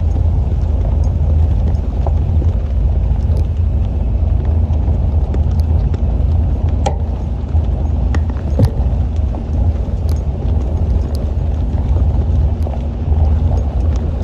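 Toyota 4Runner driving slowly: a steady low rumble of engine and road noise, with scattered light clicks and rattles.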